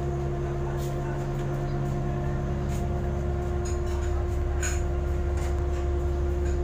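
A shrimp trawler's diesel engine running steadily while trawling: a constant low drone with a fixed hum, with a few faint clicks or rattles on top.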